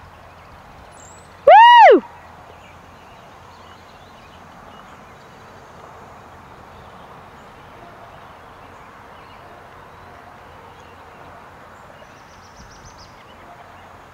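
A comedy sound effect about a second and a half in: one loud, clean pitched tone, half a second long, that swoops up and back down in a single arch. Around it is a faint outdoor background with a few faint high bird chirps.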